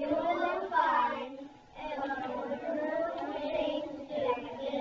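Young children singing a song together, with a short break between lines about one and a half seconds in.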